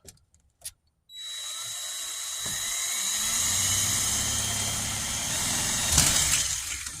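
Power drill boring a hole through a storm door. It starts about a second in and runs steadily, with a sharp knock about six seconds in, then eases off near the end.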